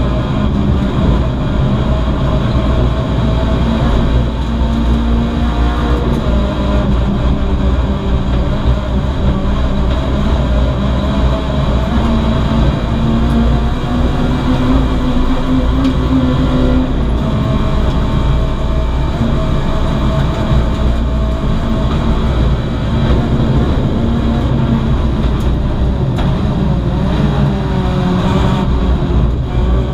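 VW Lupo GTI race car's 1.6-litre four-cylinder engine running hard, heard from inside the stripped cockpit over heavy road and tyre rumble. The engine note rises and drops several times with throttle and gear changes.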